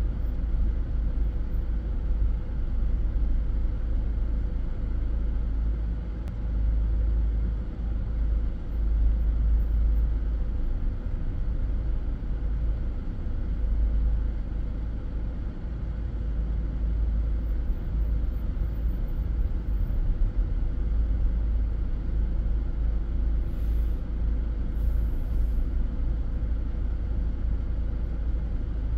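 Car slowly creeping in a queue, heard from inside as a steady low rumble with a faint steady hum. Two short hisses come about three-quarters of the way through.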